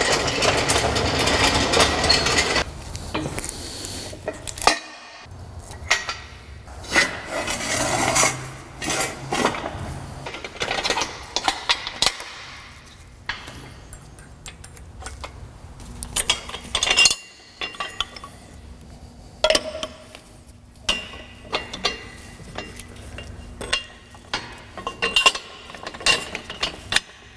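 Metal tools and hardware clinking and clanking in irregular knocks, some ringing briefly, with a denser rush of noise in the first two or so seconds.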